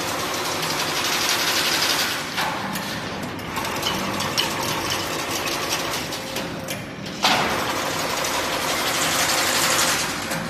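Industrial machinery running, with a steady mechanical hum under loud stretches of hissing, whirring noise that come and go. One stretch starts abruptly about seven seconds in.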